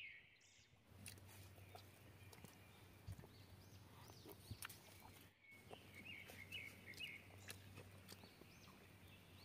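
Near silence: faint outdoor ambience with a low hum and a few distant bird chirps, most of them a little past the middle.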